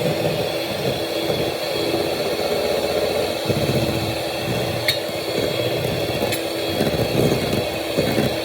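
Electric hand mixer running steadily, its beaters whipping a mixture toward stiff peaks. Two sharp clicks come about midway through.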